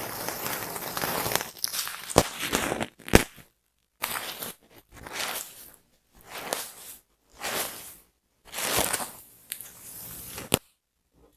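Close-up scratching and scraping at the scalp and through the hair to loosen dandruff. It comes in separate crunchy strokes of about a second, with a few sharp clicks between them.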